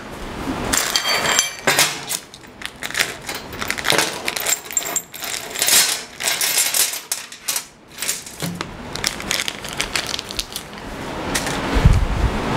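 Small metal fasteners from the fence hardware packs clinking and rattling as they are handled and sorted, a steady run of light metallic clicks and jingles. A dull thump near the end.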